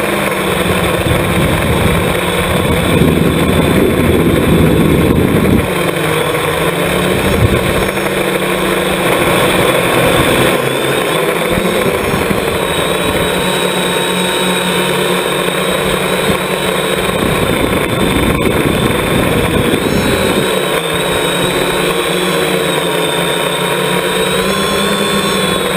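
Multirotor drone's electric motors and propellers heard from its own onboard camera: a steady whine that shifts in pitch with the throttle, over a rushing noise that swells a few seconds in.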